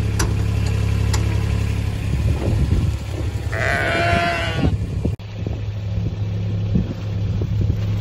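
A sheep bleats loudly once for about a second, a little after the middle, over a steady low engine drone.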